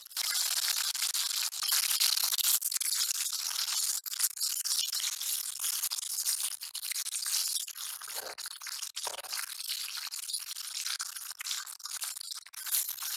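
Tilapia steaks frying in hot oil in a metal pan: a steady sizzle with a dense crackle, starting abruptly at the beginning.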